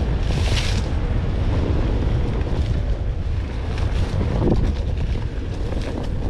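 Steady wind buffeting on the microphone from riding a Onewheel GT along a dirt trail, with a low rumble from the board rolling over the ground.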